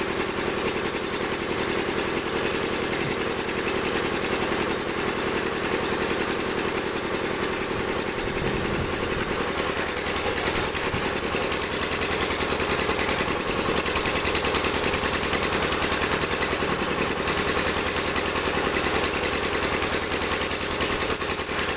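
Gas cutting torch burning steadily as it cuts through thick steel plate: a continuous hiss with a steady hum underneath.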